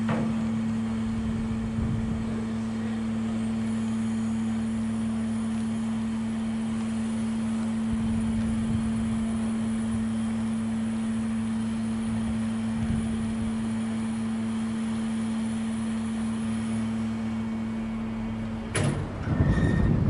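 Lifting machinery of a bascule bridge humming steadily as the deck is raised. Near the end the hum stops and a loud rough burst of noise follows for about two seconds.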